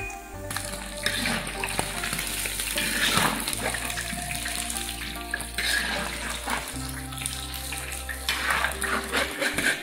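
Small fish deep-frying in hot oil in an iron wok, a steady sizzle, as a ladle scrapes and clinks against the wok while the fish are lifted out.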